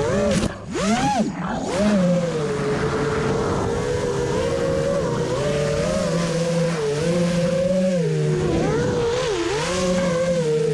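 FPV quadcopter's electric motors whining, the pitch rising and falling constantly with the throttle. About a second in the sound briefly drops away and then swoops sharply up in pitch as the throttle is cut and punched again.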